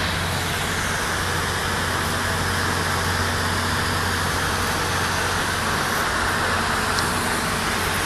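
Steady outdoor background roar, an even noise with a low hum underneath, unchanging throughout; no flapping or motor sound from the robotic bird stands out.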